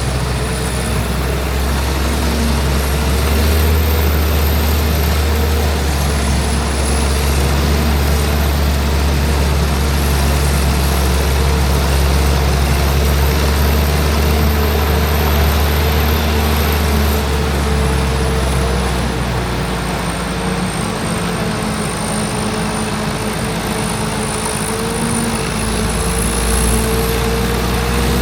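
Large diesel harvest machinery running steadily in the field, with a faint high whine that wanders in pitch. Partway through, the deep low rumble eases for several seconds and then returns.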